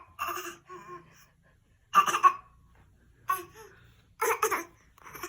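A young child's short, playful coughs in small clusters, a second or so apart, some in quick pairs. The coughs sound so much like laughing that it is unclear whether the child is coughing or laughing.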